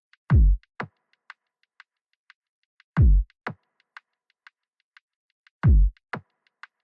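Synthesized electronic kick drum ("future kick"): three loud hits about every 2.7 seconds, each a sharp attack whose pitch drops fast into a deep boom, followed half a second later by a softer second thump. Light high ticks fall in between, about two a second.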